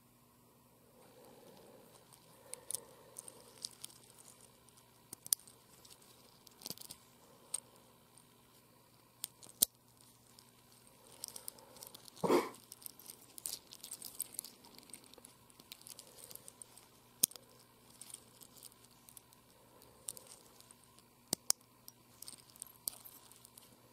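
Stainless steel watch bracelet being handled by hand: its metal links clink and rattle with scattered sharp metal clicks, and a louder knock about twelve seconds in.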